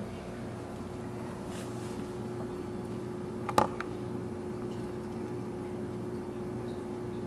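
Steady low hum with a held tone, and one sharp click about three and a half seconds in.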